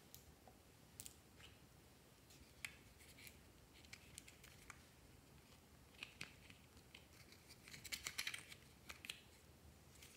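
Faint, sharp plastic clicks and taps from handling and opening a small plastic container with a snap-on flip lid, scattered through, with a quick run of clicks about eight seconds in.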